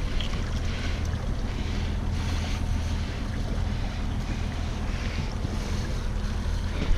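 Steady low drone of a boat's outboard motor running at trolling speed, mixed with gusting wind noise on the microphone and water washing against the hull.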